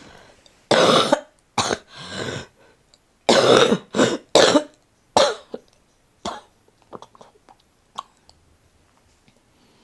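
A woman coughing repeatedly, about seven or eight short harsh coughs in two quick clusters over the first five seconds or so, then only a few faint small sounds. It is a persistent cough the day after laparoscopic gallbladder surgery.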